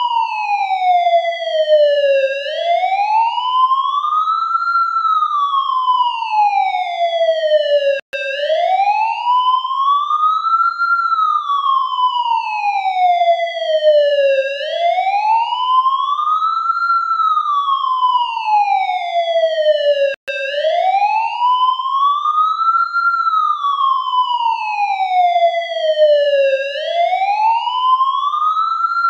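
Ambulance siren in a slow wail: the pitch rises over about two and a half seconds and falls over about three, repeating about every six seconds. The sound cuts out for an instant twice.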